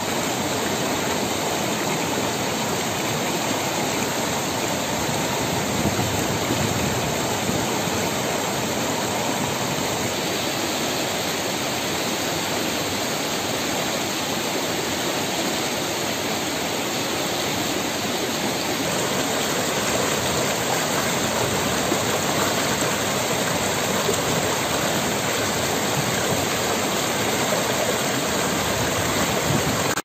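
Shallow, rocky mountain stream rushing over stones and small rapids: a steady, unbroken rush of water.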